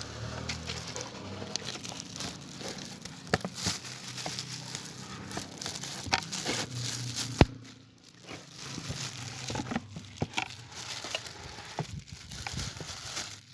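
Speaker packaging being handled and opened: crinkling and rustling, with scattered clicks and one sharp knock about seven and a half seconds in.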